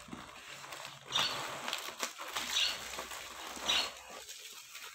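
Plastic packaging and cardboard rustling and crinkling as a hand rummages inside an opened shipping box, with three louder crinkles along the way.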